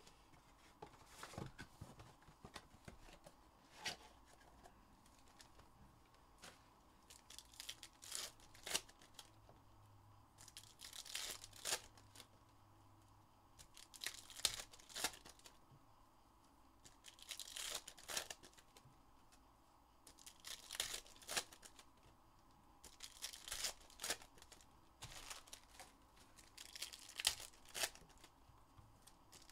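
Foil trading-card packs of 2022 Topps Chrome Sapphire Formula 1 being torn open one after another, with a crackly burst of tearing and crinkling wrapper about every three seconds.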